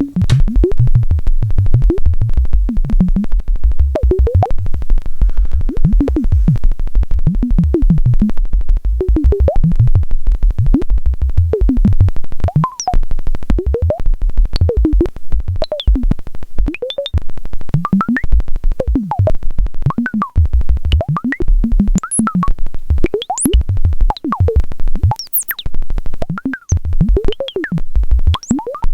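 Modular synthesizer patch with two resonant filters pinged by pulse waves, giving a rapid stream of short, plucky low thumps and brief tones whose pitches glide up and down as control voltages shift the filter frequencies.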